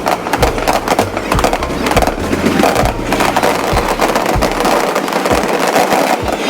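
Fireworks crackling and popping in a rapid stream, over music with held bass notes.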